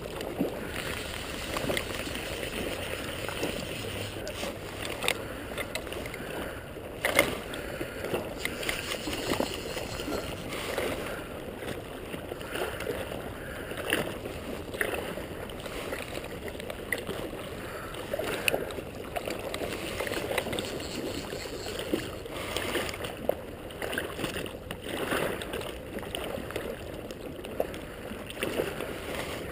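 River water lapping and gurgling close by, a steady rushing wash with scattered small splashes and clicks throughout.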